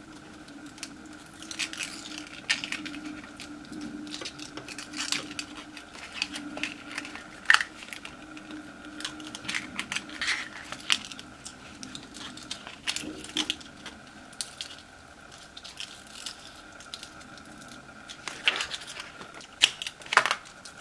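Stencil vinyl being weeded with a hook tool: scattered soft crackles and ticks as cut letter pieces are peeled off the backing, over a faint steady hum.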